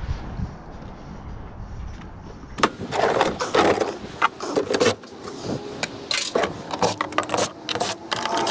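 A low rumble, then from about two and a half seconds in a quick run of sharp metallic clicks and clinks: loose screws and sheet-metal parts handled while an air-conditioning unit is taken apart.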